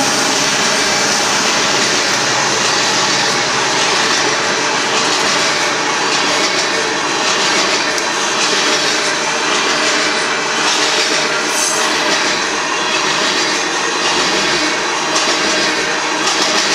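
Open-top aggregate hopper cars of a freight train rolling past, a steady loud noise of steel wheels on rail, with a faint repeating beat in it from about the middle on.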